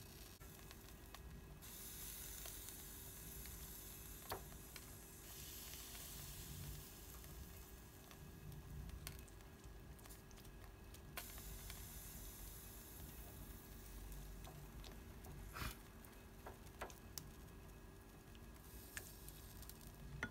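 Pork belly skewers sizzling faintly on an electric grill. The sizzle swells and fades in patches, with a few light clicks.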